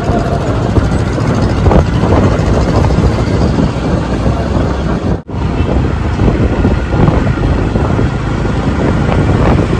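Motorcycle riding along a road, its engine and road noise mixed with heavy wind buffeting on the microphone. The sound cuts out abruptly for an instant about five seconds in.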